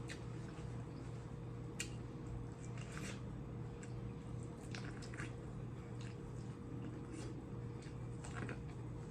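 Close-miked eating of a seafood boil: wet chewing and squishing mouth sounds, with scattered short sharp clicks, over a steady low hum.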